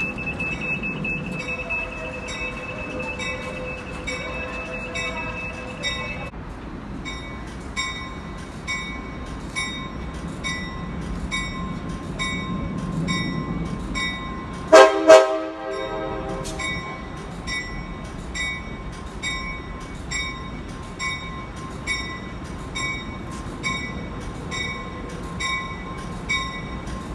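A bilevel passenger train approaching a station platform sounds its horn in two short blasts about halfway through. A bell rings steadily throughout, about one and a half strokes a second.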